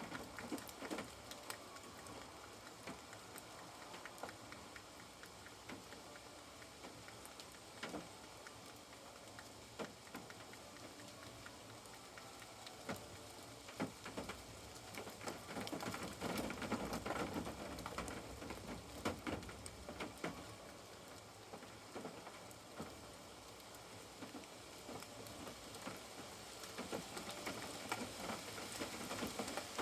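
Rain falling on a caravan roof: a steady hiss with many separate drips ticking against it, a little heavier from about a third to two-thirds of the way in.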